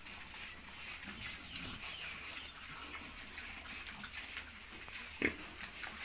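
Pigs eating pellet feed off a concrete floor: a steady run of small crunching clicks from chewing, with one sharp knock about five seconds in.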